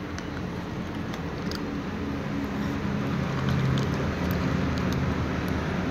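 A steady low rumble that swells about halfway through, with a few faint small ticks over it from cats eating out of plastic bowls.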